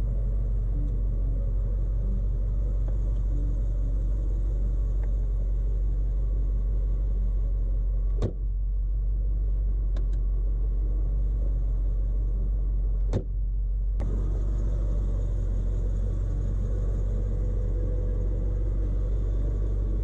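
1973 Mercedes-Benz 300SEL 4.5's V8 engine idling with a steady low rumble. A few sharp car-door clicks come about eight, ten and thirteen seconds in.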